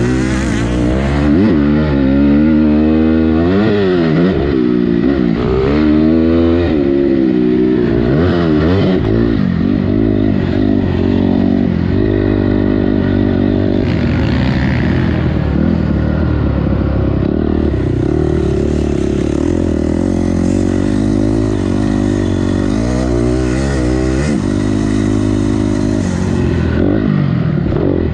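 Motocross bike engine, heard from on the bike as it is ridden hard around the track: the revs climb and drop again and again as the throttle is opened and shut through the corners and jumps, with a steadier spell in the middle.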